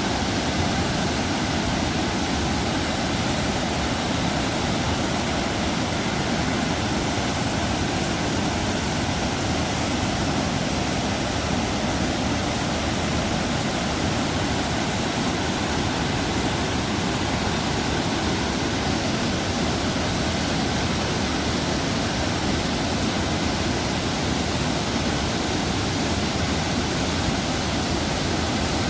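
Waterfall with water pouring and splashing in a steady, unbroken rush.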